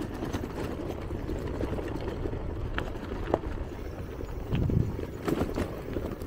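Touring bicycle rolling over a rough stony track: a steady rumble from the tyres on rock, with a few scattered knocks and rattles from the bike over the bumps.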